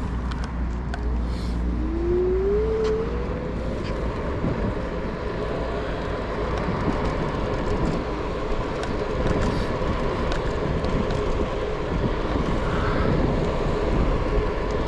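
Electric kick scooter riding along a paved path: the motor's whine rises in pitch as it speeds up a couple of seconds in, then holds steady over wind rumble and tyre noise, with scattered small clicks and knocks from the ride.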